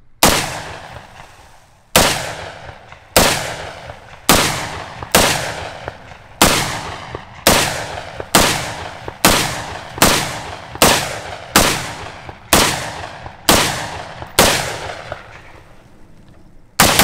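Springfield Saint AR pistol in 5.56 firing about seventeen semi-automatic shots, roughly one a second, each sharp crack trailing off in an echo. A pause of about two seconds comes before the last shot, near the end.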